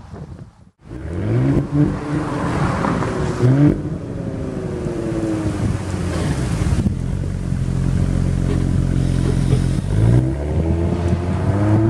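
Porsche Cayenne E-Hybrid's 3.0-litre turbocharged V6 revved while standing still, heard at the quad tailpipes. The pitch climbs quickly twice and sinks slowly back, the engine holds a steady speed for a few seconds, then it is blipped twice more near the end.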